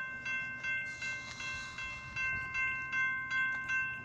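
Railroad grade-crossing warning bell ringing in an even rhythm, about three strikes a second, sounding the warning that a train is approaching the crossing.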